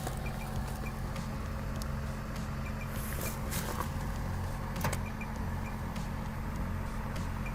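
Outdoor unit of a Senville 12,000 BTU mini-split heat pump running at full heating capacity: a steady low hum from the inverter compressor and fan, with a few faint scattered clicks.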